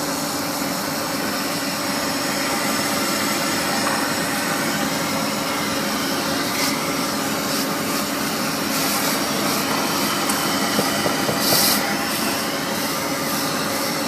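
Polygon pole welding machine running: a steady, loud mechanical noise over a constant hum, with a few short hisses in the second half.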